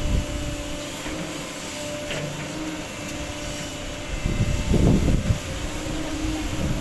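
SANY SY215C 21.5-ton excavator's diesel engine and hydraulics running, with a steady whine over the engine noise. About four seconds in it swells louder for a second or so, then settles back.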